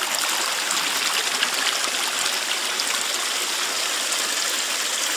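Steady rush of water flowing down a highbanker's sluice extension over riffle bars and matting.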